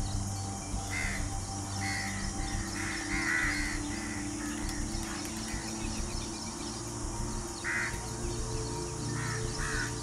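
Harsh, crow-like bird calls: a run of caws in the first few seconds and a few more near the end. They sound over a steady drone of sustained musical tones whose pitch changes about eight seconds in.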